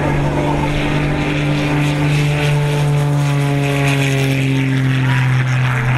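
Propeller engine of a low-flying aerobatic monoplane droning as it makes a fast pass along the runway, its pitch falling slowly as it goes by.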